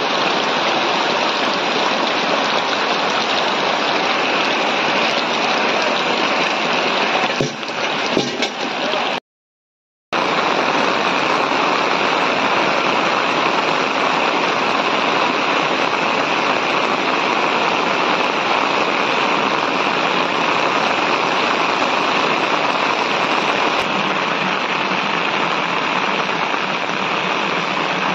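Heavy rain pouring down onto standing water and wet ground, a steady dense hiss of drops. It cuts out for about a second a little after nine seconds in, then resumes.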